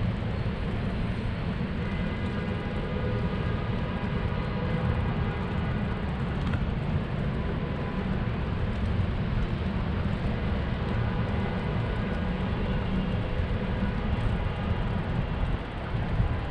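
Steady low rumble of wind and road noise from a moving bicycle in city traffic, with a faint hum of traffic above it.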